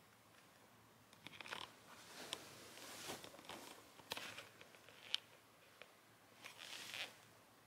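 Faint rustling of bedding with a few small sharp clicks, from a kitten pawing and shifting on a soft duvet.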